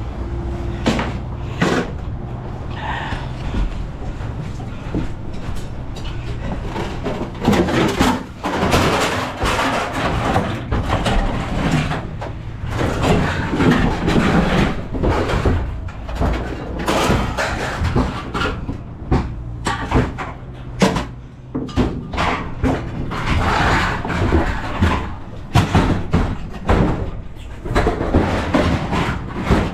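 Irregular clanks, bangs and clatters of scrap being handled and loaded, over a low engine hum that fades out a little past halfway.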